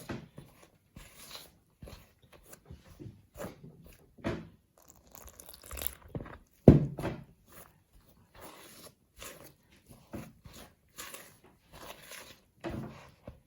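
Flour and water being mixed into dumpling dough in a bowl: irregular soft squishing and scraping, with one louder knock about seven seconds in.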